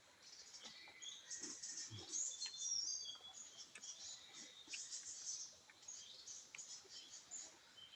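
Birds chirping and twittering, with short high calls and little whistled glides, plus a couple of faint low knocks.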